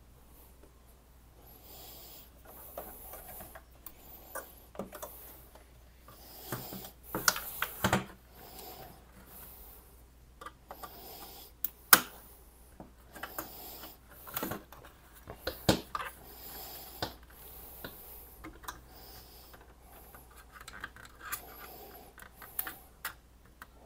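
Plastic case of an ASUS ROG Rapture GT-AX11000 router being pried apart with a thin flathead screwdriver: scattered scraping and handling noise with sharp clicks as the snap clips pop loose, the loudest click about halfway through.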